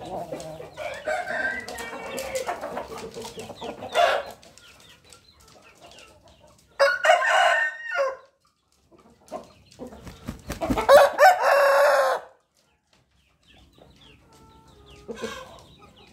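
Pakhoy gamecock rooster clucking and calling, with a loud call about seven seconds in and one long crow about ten seconds in.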